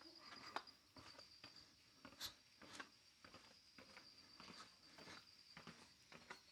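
Faint, steady high-pitched cricket trill, with scattered soft clicks and knocks.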